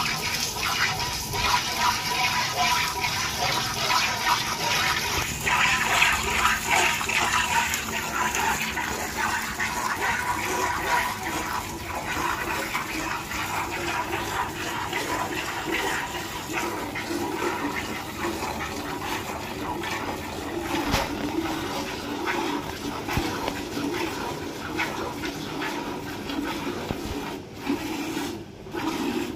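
Hand milking of a cow: streams of milk squirting from the teats into a steel pail in a fast, irregular run of hissing splashes.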